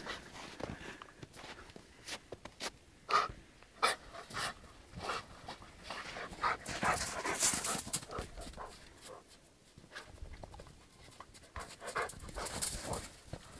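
A dog panting in quick, irregular breaths as it rolls and plays in deep snow, with the snow crunching under it.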